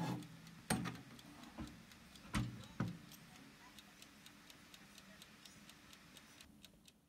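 Mechanical timer of a SilverCrest countertop oven ticking with quick, even, faint ticks. A few knocks in the first three seconds come from the ceramic dish going onto the wire rack and the glass door being shut.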